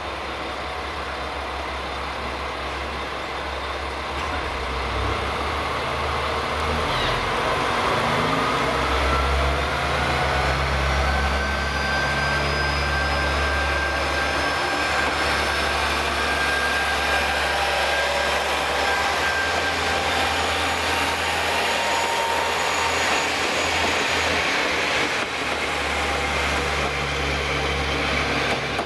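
Diesel engines of a three-car KiHa 40/47 railcar train running, louder after a few seconds, with a whining note that rises in pitch as the train gets under way.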